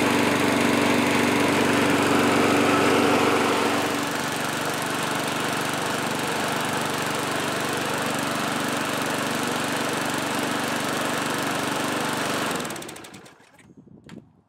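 A refurbished MTD push mower's single-cylinder four-stroke engine running steadily, a little quieter from about four seconds in. About two seconds before the end it is shut off and quickly winds down to a stop, followed by a couple of faint clicks.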